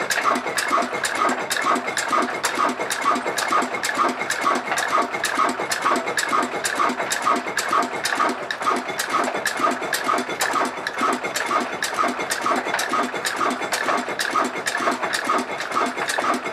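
Old Ruston Hornsby stationary diesel engine running at a steady speed, its fuel pump and valve gear ticking in an even beat about twice a second.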